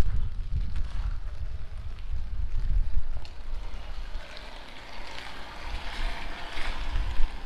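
Strong wind buffeting the microphone during steady rainfall. The low gusty rumble eases about halfway through, while a hissing wash rises and then fades near the end.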